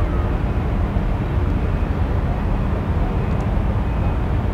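Steady low rumble of a large container ship and its tugboat's engines passing close by, with a faint hum of steady tones above it.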